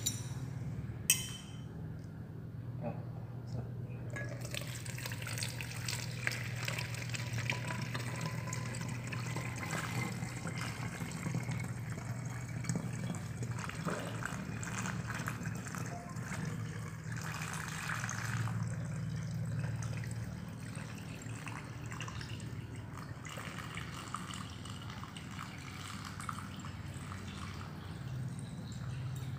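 Alcohol-based hand sanitizer solution poured from a glass beaker through a plastic funnel into a plastic bottle: a steady trickling pour that starts about four seconds in and runs on. A sharp knock comes about a second in, over a low steady hum.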